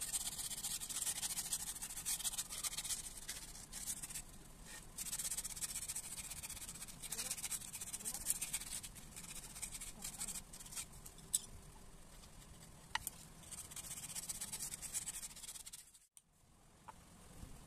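Sandpaper rubbed by hand over carved wood, a dry scratchy hiss in repeated back-and-forth strokes that stops about sixteen seconds in.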